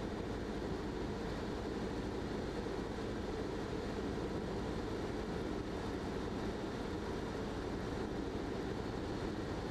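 Socata TB-9 Tampico light aircraft's piston engine and propeller droning steadily, heard from inside the cabin in flight.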